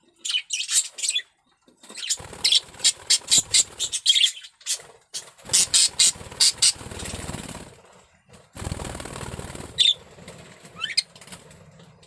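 Male budgerigar warbling: fast runs of scratchy chirps and clicks broken by short pauses, then a falling and a rising whistle near the end. It is the courtship warble of a male in strong breeding condition.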